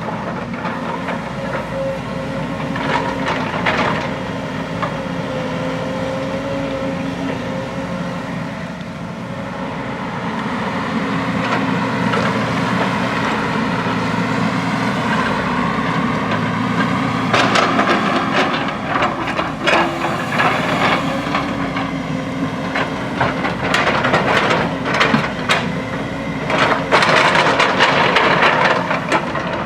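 JCB backhoe loader's diesel engine running steadily under load while digging, with bursts of knocking and scraping from the bucket working rock and soil, heaviest in the second half.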